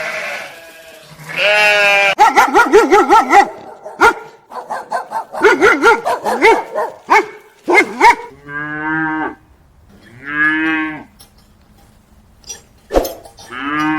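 Farm animals calling: a run of quavering bleats, then two longer, lower calls about eight and ten seconds in, and another near the end.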